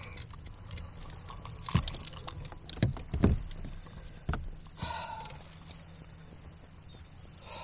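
Scattered knocks and clatter of fishing gear being handled against a kayak, with a few louder thumps about two to three seconds in.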